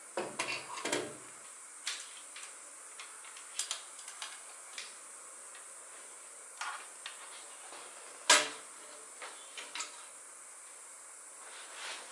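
Scattered metal clinks and knocks from exhaust parts and tools being handled while a motorcycle exhaust system is fitted. There is a quick flurry in the first second and one sharp, loud knock about eight seconds in.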